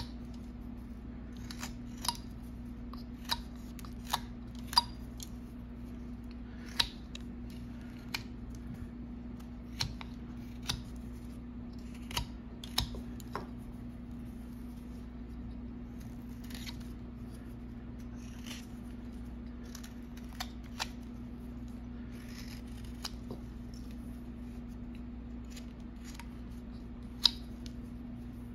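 Small carving knife slicing shavings off a hand-held block of wood in short, irregular snicks: light smoothing cuts taking off the cut marks. The cuts come thick in the first half and only now and then later, over a faint steady hum.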